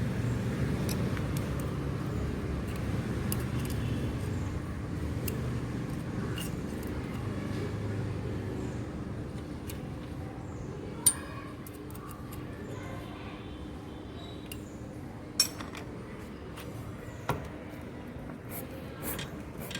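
Metal tools and small engine parts clinking now and then during assembly, with a few sharp clinks in the second half, over a steady low hum.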